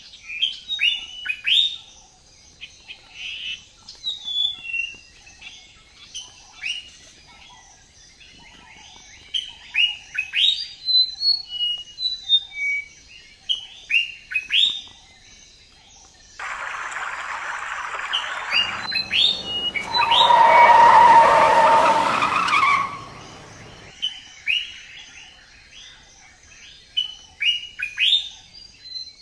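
Songbirds chirping and singing in a run of short, quick calls. Past the middle a loud rushing noise with a steady whine swells up over the birds for several seconds, then stops, and the chirping carries on.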